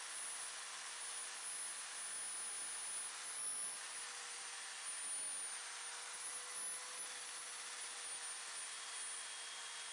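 Electric drill spinning a felt polishing wheel with a steel scissor blade held against it, a steady motor whine over an even hiss.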